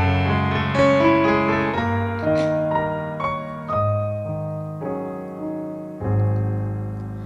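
Piano playing a slow instrumental introduction to a song: single melody notes over held chords, each note ringing and fading, with a deep bass note entering about six seconds in.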